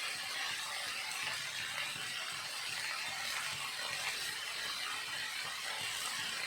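Potatoes and green beans sizzling steadily as they fry in hot oil in a pan.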